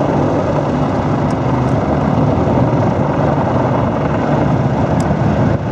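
Steady rotor and engine drone of a formation of Royal Navy helicopters (Merlins, Sea Kings and Westland Lynx) in flight, deep and fluttering.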